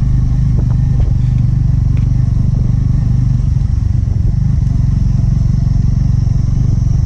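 Motorcycle engine running steadily at low speed, with occasional knocks and rattles as the bike rides over a rutted dirt road.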